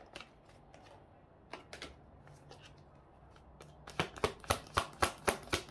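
A deck of tarot cards being shuffled by hand: a few soft clicks among long quiet stretches, then about four seconds in, a quick run of card slaps, about four a second.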